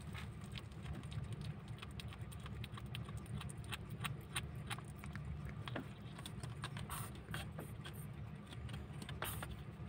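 Kitten chewing and tearing at a piece of raw chicken: faint, irregular little clicks and smacks over a steady low hum.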